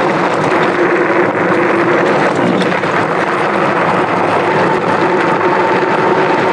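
Wind rushing over the microphone and fat tyres rolling on loose gravel as the Engwe X24 electric bike rides at speed, a steady rush with a faint even whine under it.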